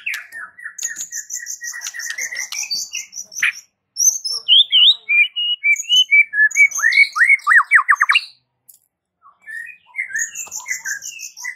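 White-rumped shama singing a varied, loud song. It opens with a run of rapid repeated notes over a high rattle, then moves to changing whistles and a fast string of rising sweeps. After a short pause, it starts again near the end.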